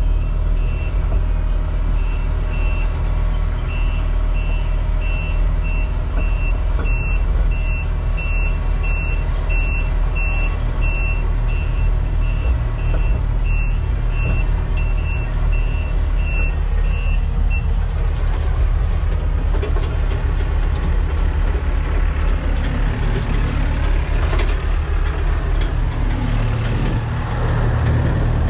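Small diesel excavator running while it is driven, its travel alarm beeping in a steady run over the engine. About two-thirds of the way in the beeping stops and the engine carries on with a clattering working noise.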